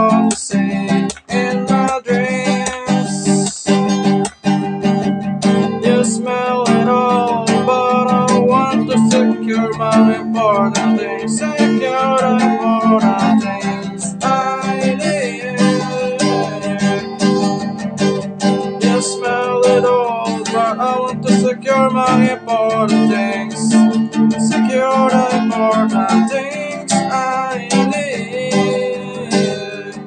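Acoustic guitar strummed with a capo on the neck, with sharp strokes in the first few seconds, and a man singing a wavering melody over the chords.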